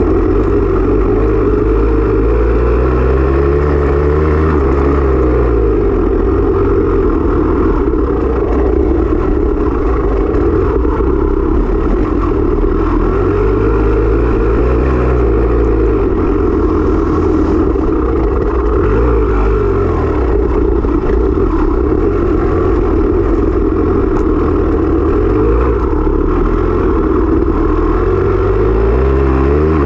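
Dirt bike engine, heard close up, revving up and dropping back several times in long swells over a constant loud drone.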